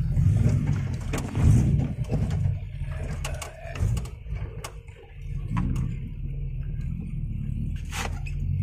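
Off-road 4x4's engine running, its low throb surging and easing, with scattered clicks and knocks.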